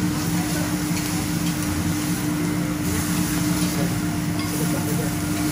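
Steady mechanical hum with a constant low tone, under an even hiss of seafood sizzling on a hot teppanyaki griddle. A few faint clicks of the chef's steel spatula come from the griddle.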